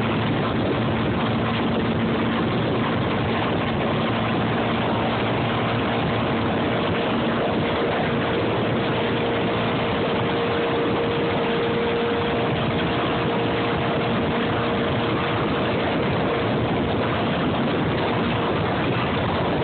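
Motorboat engine running steadily at speed, with a steady hum under an even rush of water from the churning wake.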